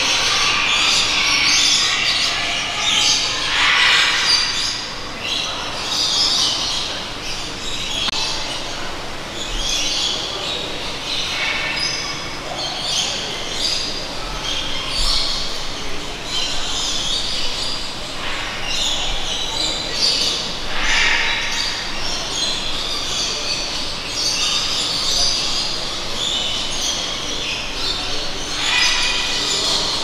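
Many birds calling and chirping inside a large indoor aviary: a dense, overlapping chorus of high-pitched calls over a steady background noise.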